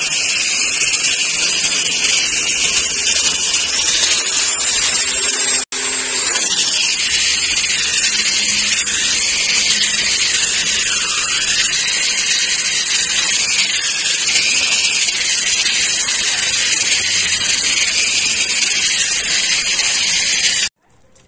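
Electric orbital sander running steadily as its pad sands a travertine wall surface: a continuous high hiss, with a whine that rises and then falls a few seconds in. It drops out for an instant about six seconds in and stops abruptly just before the end.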